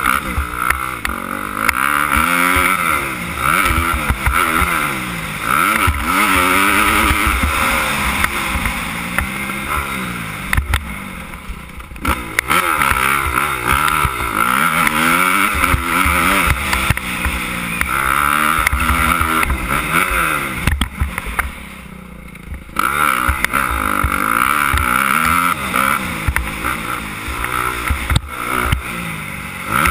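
Suzuki 250 motocross bike's engine revving hard, its pitch repeatedly climbing and dropping as the rider works the throttle and gears around the track. The engine backs off and goes quieter briefly about twelve seconds in and again for a second or so around twenty-one seconds in.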